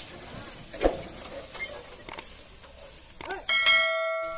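Dry sugarcane trash crackling and rustling underfoot, with a couple of short calls. About three and a half seconds in, a chime sound effect for a subscribe-button animation rings out as a steady bell-like note with overtones, the loudest sound here.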